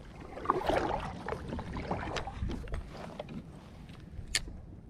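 Water lapping and sloshing against a kayak hull, with small knocks and clicks from handling tackle. One sharp click comes near the end.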